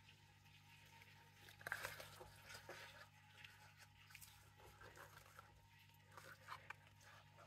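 Near silence with a low steady hum, broken by a few faint rustles and light clicks of gloved hands handling a plastic cup and silicone resin moulds, about two seconds in and again near the end.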